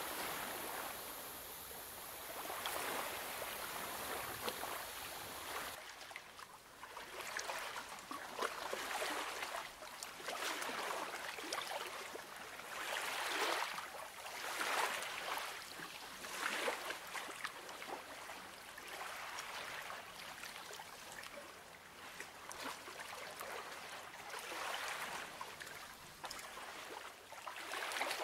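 Colouring strokes scratching on paper, coming in repeated swells of a second or two.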